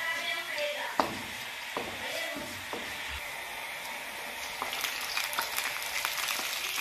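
Oil sizzling in a wok as chopped pieces fry, with a wooden spatula knocking against the pan a few times in the first three seconds. From about four and a half seconds in, after more chopped pieces are scraped in from a cutting board, the sizzle turns to denser crackling.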